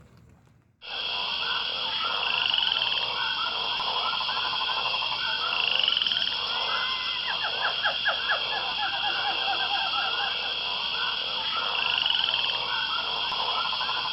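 A dense chorus of frogs calling, many short repeated croaks and trills over a steady high buzzing. It starts abruptly about a second in.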